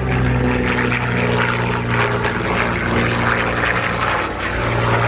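Propeller-driven display plane's piston engine running at high power in a steady drone, dipping briefly a little past four seconds in before resuming.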